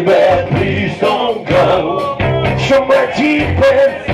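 Live rock band playing on electric guitar and drums, with a male voice singing at times.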